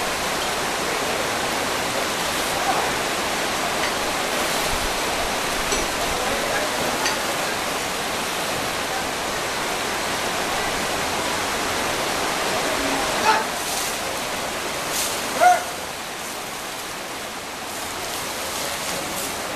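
Steady rush of river water flowing around a herd of wading elephants, with a couple of short sharp sounds about two-thirds of the way through.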